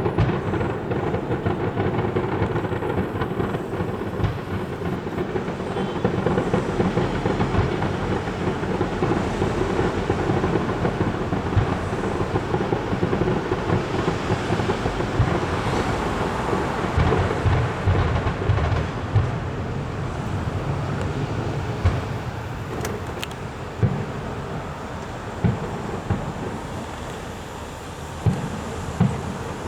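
Fireworks display: a dense barrage of shells bursting in quick succession, thinning in the last third into separate sharp bangs every second or two.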